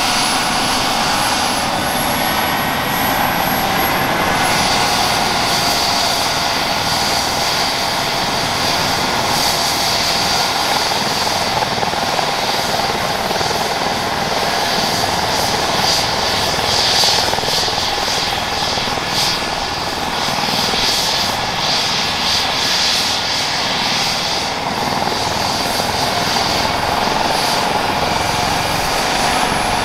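Airbus H135 helicopter's twin Pratt & Whitney PW206B3 turboshaft engines running on the ground with the main rotor turning: a steady turbine whine over the rotor noise, the whine rising slightly in pitch over the first few seconds.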